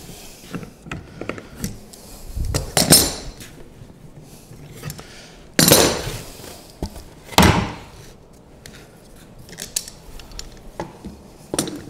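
A few short scraping strokes of a Japanese block plane across the edge of a plywood panel, with clicks and knocks of tools handled on a workbench.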